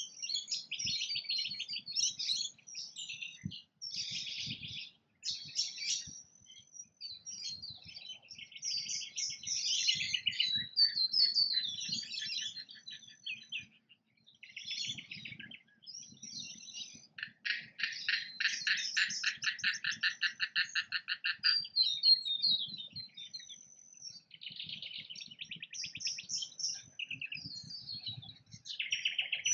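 Birds chirping and chattering in quick, high-pitched calls, with a fast rattling series of notes lasting about four seconds a little past the middle.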